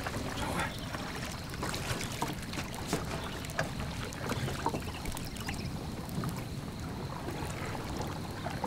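Water lapping around a small boat, with scattered small splashes and knocks.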